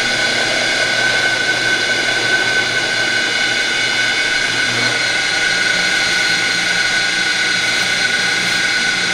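Motorised kudzu-root juicing machine running steadily with a high whine as it grinds and presses the root.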